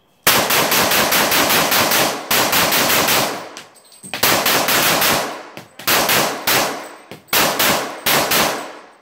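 Glock 23 pistol in .40 S&W fired rapidly through an extended magazine. Strings of quick shots, about five or six a second, break off into short pauses several times, and each shot echoes briefly.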